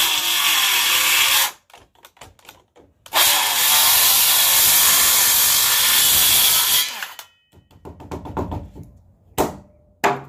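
Circular saw cutting through the end of a wooden beam in two runs: the first stops about a second and a half in, the second runs from about three seconds in to about seven. A few sharp knocks follow near the end as the saw is handled.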